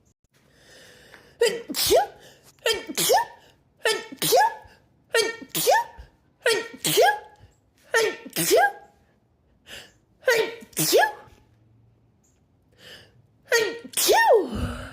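A woman sneezing repeatedly in a sneezing fit: eight sneezes, about one every second and a bit, with a short pause before the last one. Each is a quick voiced 'ah' and then a 'choo' whose voice slides upward.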